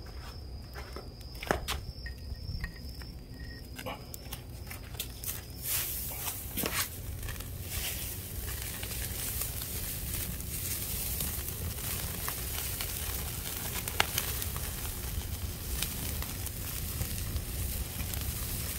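Rice-straw fire burning and crackling: scattered sharp pops at first, then from about six seconds in a dense, continuous crackle as the straw blazes up, over a low steady rumble.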